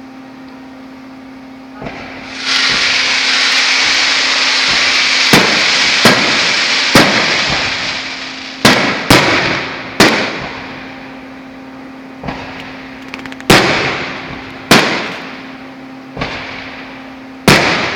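Fireworks going off: a loud hissing spray starts about two and a half seconds in and lasts several seconds, and through and after it come about nine sharp bangs, each trailing off in a fading echo.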